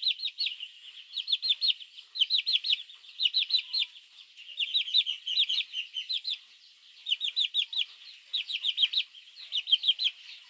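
Baby chicks peeping loudly and continuously, calling for the mother hen: high-pitched falling peeps in quick runs of three to six, with short pauses between runs.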